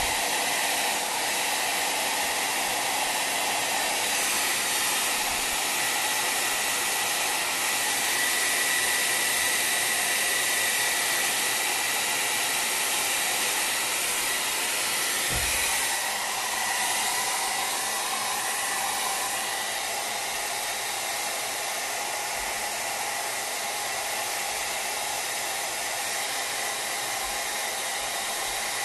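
Hand-held hair dryer blowing steadily over a watercolour painting to dry the paper: a continuous rush of air with a faint high whine. There is a brief low thump about halfway through.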